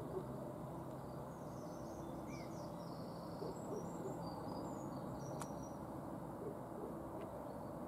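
Faint dawn birdsong: a few low hoots and scattered high chirps over a steady low background hum, with one small sharp click midway.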